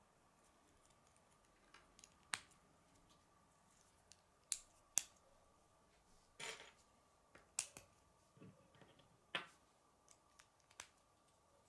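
K'nex plastic rods and connectors snapping together and clicking as they are fitted by hand: a scattering of short, sharp clicks, the loudest about two, four and a half, five and nine seconds in.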